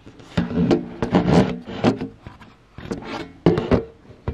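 Irregular handling noise: rubbing and scraping with several sharp knocks and clicks. The machine itself is not stitching.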